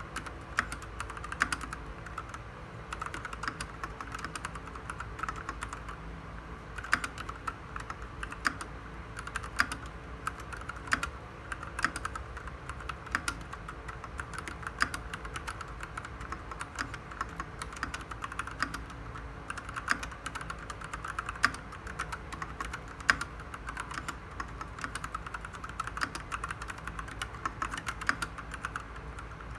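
Typing on an RK68 mechanical keyboard with red linear switches: a steady, fast run of keystrokes, with a few louder strokes standing out.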